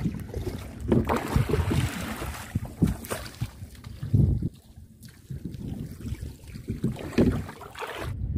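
Wind buffeting the microphone in irregular low gusts, over water lapping around a small craft being pushed along with a pole.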